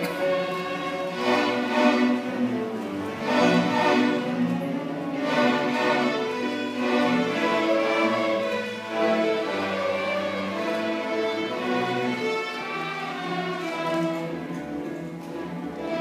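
Student string orchestra of violins, cellos and double basses playing a piece together, mostly sustained bowed notes with several accented chords in the first half.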